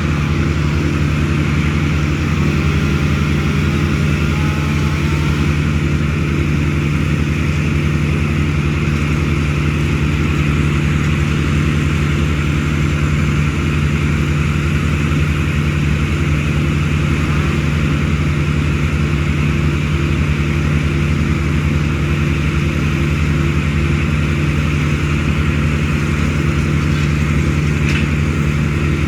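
An engine running steadily at one constant speed, a low even hum with no revving or cutting strokes.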